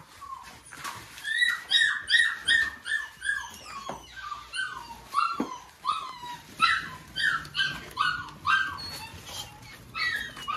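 A puppy whining in a long run of short, high cries that each fall in pitch, about three a second, with brief pauses between runs.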